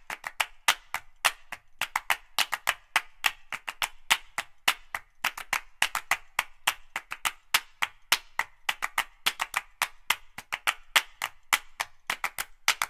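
Percussion-only passage of the background music: sharp, dry clicks, about six a second in an uneven pattern, with no street sound between them.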